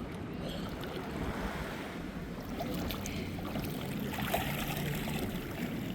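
Steady sea noise: small waves and water moving around a swimmer, with wind on the microphone and a faint low hum underneath.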